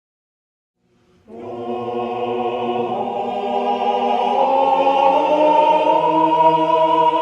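Background music of sustained choral voices holding long chords, in the style of a chant, starting after about a second of silence and swelling slightly.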